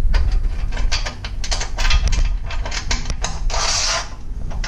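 Eye bolt on its channel nut sliding along the slotted track of a Rhino-Rack Pioneer roof-rack platform: a run of quick metallic clicks and rattles, with a longer scrape about three and a half seconds in.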